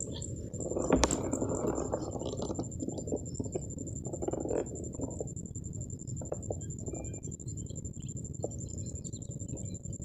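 Muffled rustling and handling noise from a rifle-scope camera rig, with a sharp knock about a second in and scattered small clicks, over a steady faint high-pitched electronic whine.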